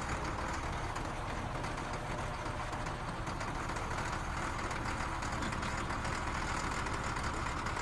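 A motor grader's diesel engine running at a steady idle, with an even low throb.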